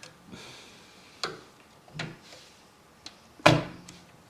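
A few sharp clicks and knocks of a graphics card being handled and pressed into the motherboard's PCIe slot in a PC case, the loudest about three and a half seconds in.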